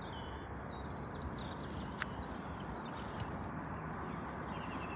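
Small birds chirping and twittering in short high calls over a steady low background noise, with a single sharp click about two seconds in.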